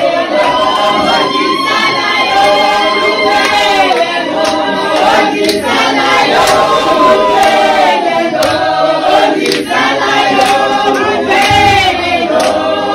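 A group of people singing together in chorus, loud and continuous.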